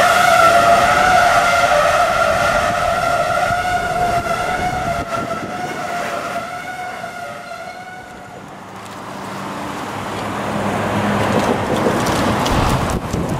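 EMD GP9 diesel locomotive's air horn sounding one long blast that fades away over the first eight seconds. After it, the locomotive's diesel engine and wind rushing over the microphone grow steadily louder toward the end.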